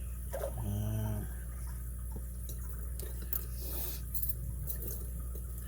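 Faint light clicks and scratches of a lock pick working the pin tumblers of a brass padlock, over a steady low hum. A brief hummed voice about a second in.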